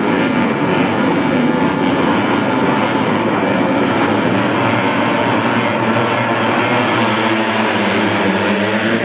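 A pack of racing motorcycles running at full throttle together, their high-revving engines merging into one dense, loud drone, with single engines' notes standing out near the end.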